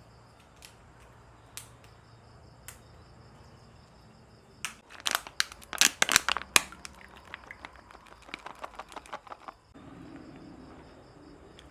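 Crickets chirping steadily. From about five seconds in, a run of sharp crackling and snapping sounds, loudest at first and then lighter and quicker, stops about ten seconds in.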